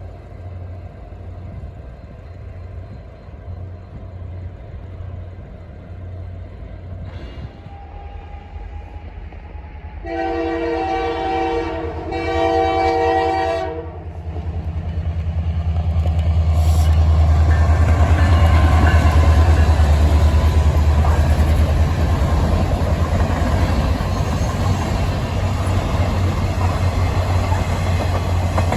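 Canadian Pacific Holiday Train's diesel locomotive rumbling as it comes on, sounding two horn blasts about ten seconds in. Then the train passes close, loudest around twenty seconds in, with the cars rolling by.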